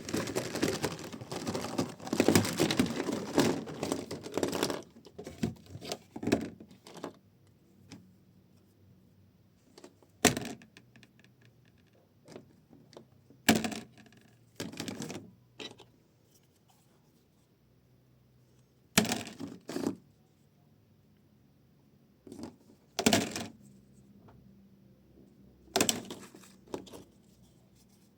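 Plastic toys being handled, with clicking and rattling. A dense run of clatter fills the first five seconds, then single sharp clicks and short double clacks come every few seconds.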